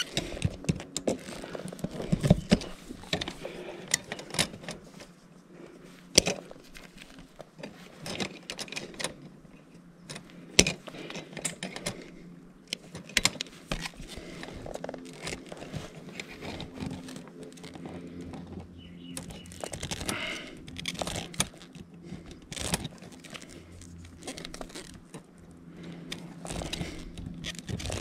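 Pliers working bare copper ground wires, twisting them together into a pigtail: scattered metallic clicks, ticks and scrapes of the tool jaws and the wire.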